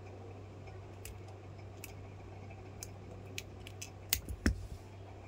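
Small clicks and taps of a smartphone being handled and reassembled by hand: a few faint ones spaced about a second apart, then two sharper clicks about four seconds in, over a steady low hum.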